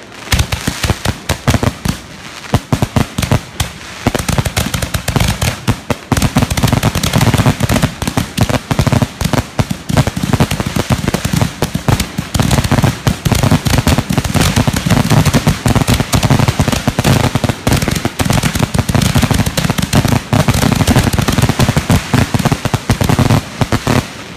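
Ground-level consumer fireworks going off: a dense, continuous stream of rapid pops and crackles, heavier from about six seconds in and cutting off just before the end.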